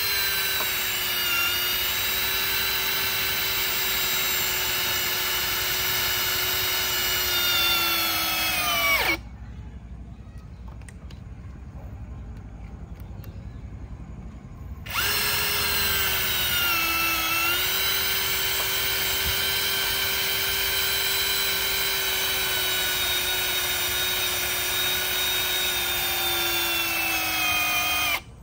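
Boshun 1065BL cordless drill driving wood screws into a timber beam: two long runs of the motor whine, about nine and thirteen seconds, with a short pause between. The pitch sags toward the end of each run.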